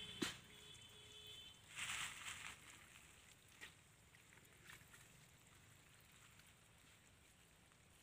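Muddy water sloshing and splashing as hands scoop it into a fish net in a shallow ditch: one sharp tap just after the start, a louder splash about two seconds in, then a few small splashes over a faint background.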